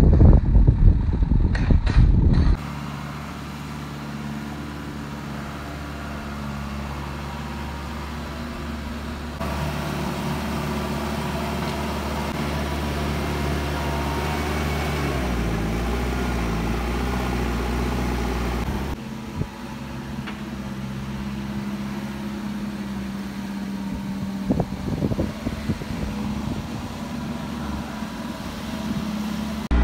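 Diesel engine of a JCB backhoe loader running steadily while it digs a foundation pit, its level shifting at a few cuts, with a few knocks about 25 seconds in. Wind buffets the microphone for the first couple of seconds.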